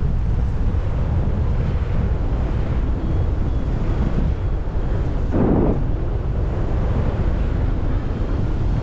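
Strong wind buffeting a GoPro's microphone as a steady, loud low rumble, with one brief brighter gust a little past halfway.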